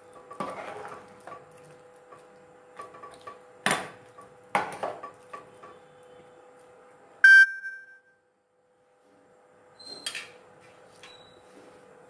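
A steel ladle stirring a thin rice and vegetable mixture in an aluminium pressure cooker, knocking against the pot now and then, over a faint steady hum. About seven seconds in comes one loud, sharp metallic ring that dies away within a second.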